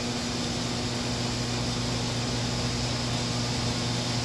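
Steady low hum with an even hiss: the background noise of a large indoor hall, likely its ventilation system.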